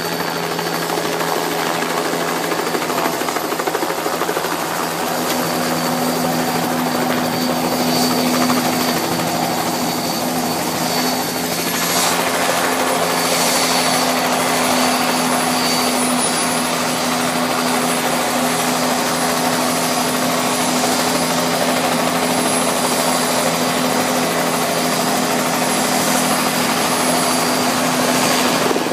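Bell 206 JetRanger helicopter, its Allison turboshaft and two-blade rotor running steadily as it hovers low and sets down, then keeps running on the ground. A high turbine whine sits over a steady engine and rotor hum.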